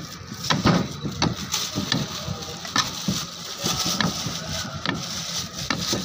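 A long knife cutting through a soft white slab on a plate, the blade tapping against the plate in short, irregular sharp clicks.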